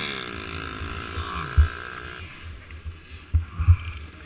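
An off-road motorcycle engine passing, dropping in pitch and fading out about two seconds in. A few dull low thumps sound against the helmet camera.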